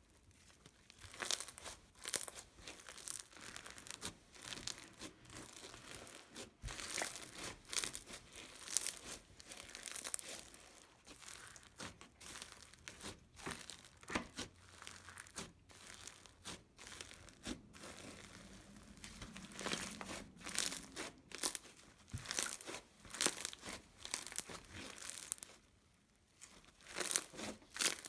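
Crunchy bead slime (Bingsu beads, crunchy snow and fishbowl beads) being squeezed and pressed in the hands: a long, irregular run of short crackles and crunches, with a short lull near the end.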